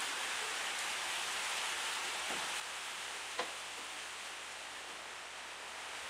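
Steady hiss of rain, with one sharp click a little past halfway.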